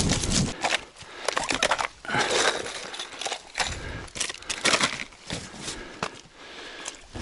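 Gear being handled in an inflatable PVC kayak: irregular rustling, scraping and light knocks from plastic tackle boxes, rope and bags, after a brief low rumble at the start.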